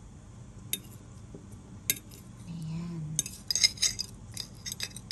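Metal utensil clinking and scraping against a ceramic plate while food is served: two single clinks, then a quick run of clinks about three seconds in and a few more near the end.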